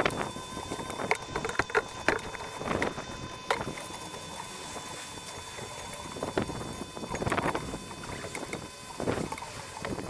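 A brush on a long telescopic pole being worked over wet concrete roof tiles, brushing on foaming cleaning chemical: irregular scrubbing swishes and several sharp knocks of the pole, over a steady hiss of light rain and wind.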